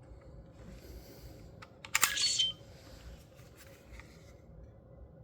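A toy sonic screwdriver's button is pressed about two seconds in, setting off a short electronic sound effect: a half-second burst of hiss with a few high tones in it. Faint clicks from handling the toy come before and after.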